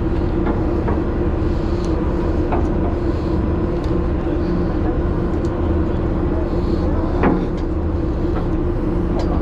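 Party boat's machinery running with a steady low drone and an even hum.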